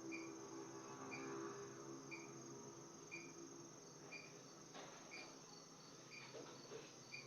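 Crickets chirping faintly: a short chirp about once a second over a steady high trill. A low hum fades out in the first few seconds.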